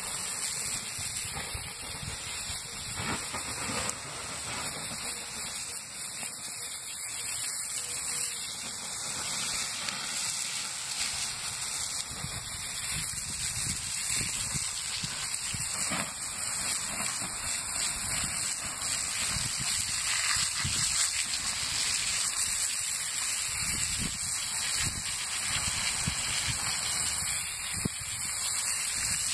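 Garden hose spray nozzle jetting water onto the smouldering embers of a burnt-out tree stump, a steady hiss of spray and steam as the hot charcoal is quenched.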